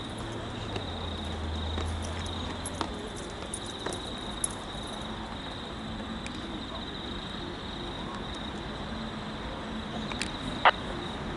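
A distant SSR S-class diesel locomotive approaching with a grain train, heard as a faint low rumble under a steady high chirring of insects. One sharp click near the end.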